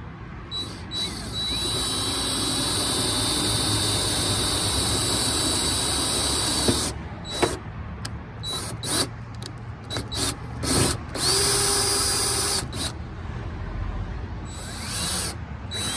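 Power drill with a large bit boring a mounting hole out to its final size, running steadily for several seconds, then in many short trigger bursts with one more brief steady run.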